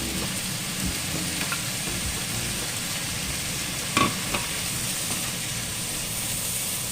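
Food sizzling steadily in a frying pan as it is stirred, with a sharp knock about four seconds in.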